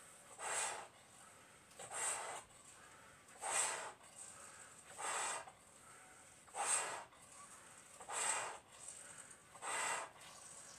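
Breaths blown by mouth into two clear bobo balloons through a shared mouthpiece, inflating both at once. There are seven breaths, about one every one and a half seconds.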